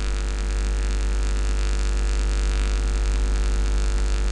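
Steady electrical mains hum under an even hiss, with no other event; the hum and hiss run unchanged.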